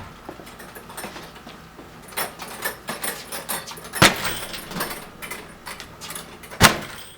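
A 90-pound heavy bag swinging into a door held shut by a strike plate lock: two sharp bangs about two and a half seconds apart, the second the loudest. Between them, fainter metallic rattling of the door and its hardware.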